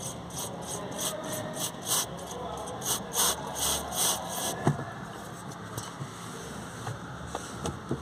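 Aerosol lubricating spray hissing in short repeated bursts, about three a second, onto a car's clutch pedal push rod to silence a squeaking clutch pedal, followed by a single sharp click and a couple of faint clicks.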